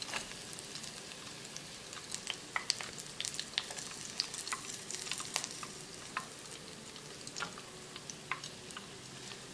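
Gram-flour-battered salmon pieces deep-frying in hot vegetable oil: a steady sizzle with many sharp crackles and pops throughout, as metal tongs move the pieces in the wire fryer basket.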